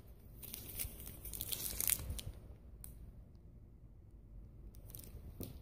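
Plastic snack wrappers crinkling and rustling as packages are handled and lifted out of a cardboard box. The rustling is busiest in the first two seconds, followed by a few sharp crackles.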